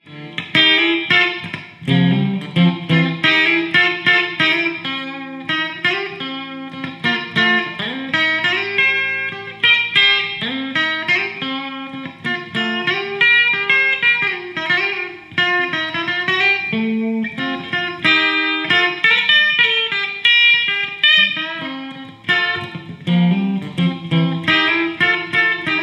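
Electric guitar, a Stratocaster-style guitar played through a small combo amplifier, playing quick runs of single notes over lower notes.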